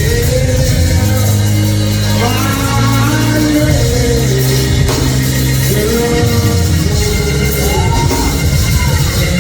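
Live gospel band music with held bass notes, and a singing voice or lead line gliding above it.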